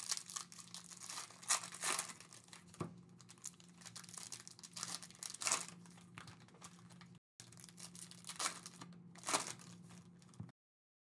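Foil wrappers of Panini Prizm hobby packs being torn open and crinkled by hand, in irregular crackles, over a faint steady hum; the sound cuts off abruptly near the end.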